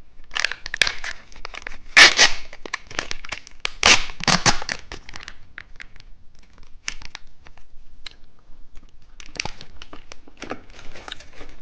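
Plastic wrapper of a two-colour cheese stick snack being torn open and crinkled, with louder rips about two and four seconds in and lighter rustling after.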